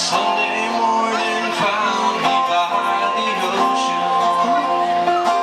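Live acoustic guitar music from a solo performer's original song, with long held melody notes over the guitar accompaniment.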